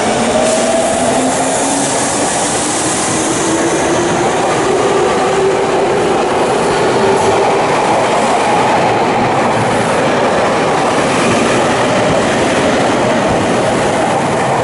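Tobu 30000 series electric train departing, its traction motors whining upward in pitch as it accelerates, over steady wheel-on-rail running noise.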